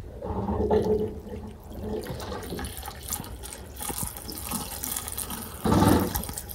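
Fuel pouring from a plastic jerry can through a funnel and hose into a car's filler neck: a steady splashing trickle that builds from about two seconds in. A brief louder burst comes near the end.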